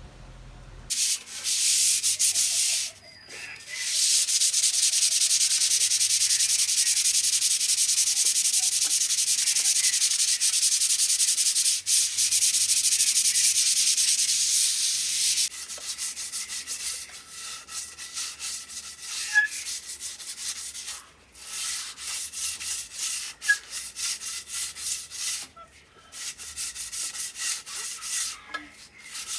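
Sanding: a loud, steady rasping hiss for about fourteen seconds, broken once briefly near the start. It then gives way to shorter, uneven strokes.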